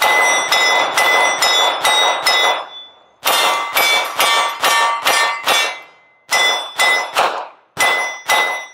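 Gen5 Glock 17 9mm pistol firing 147-grain Speer Gold Dot rounds, about sixteen shots in three quick strings with short pauses, emptying the magazine. Each hit is answered by a ringing clang from steel targets.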